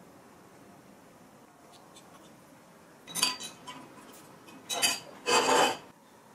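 Metal cutlery clinking and scraping against dishes: a sharp ringing clink about three seconds in, another near five seconds, then a half-second scrape.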